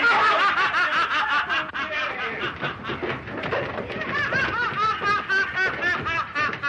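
A man laughing madly in quick, unbroken repeated bursts, from an old 1930s film soundtrack.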